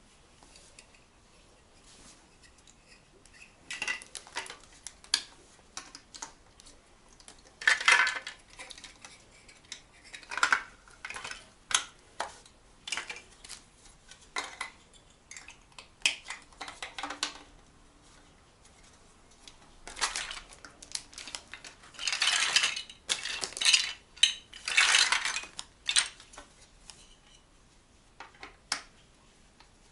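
Dishes and cutlery clinking and clattering in irregular bursts, with quiet gaps between.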